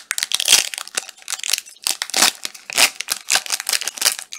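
Plastic trading-card pack wrappers crinkling and tearing as packs are opened and handled, in a long run of irregular crackling rustles.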